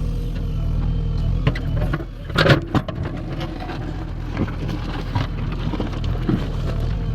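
JCB 3DX backhoe loader's diesel engine running steadily, with a thin whine over it and scattered metal clanks and knocks from the machine, the loudest clatter about two and a half seconds in.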